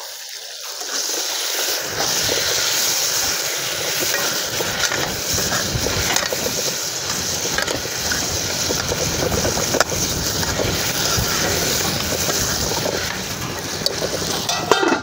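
Tomatoes and green chillies frying in oil in a metal pan, a steady sizzle, with light scraping and clicks from a steel ladle stirring them.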